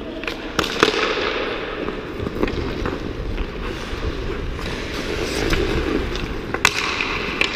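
Ice hockey play heard up close: skate blades scraping and carving the ice throughout, broken by sharp clacks of sticks and puck, two about a second in and two more near the end.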